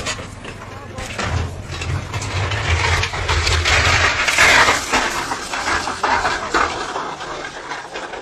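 People shouting in alarm over the rumble and crashing of a wheel loader rolling over down a snowy slope. The noise is loudest about four seconds in.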